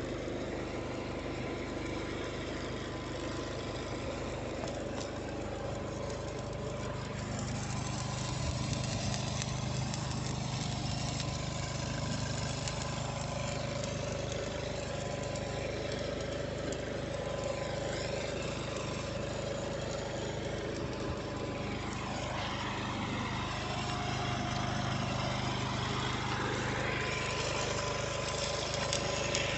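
A machine running steadily, a constant low hum with a hiss over it.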